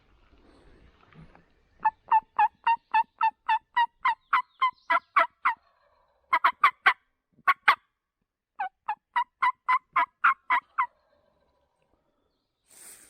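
A series of loud turkey yelps: evenly spaced, about four notes a second, in three runs. The first run is long, the second has a few notes and the third is mid-length.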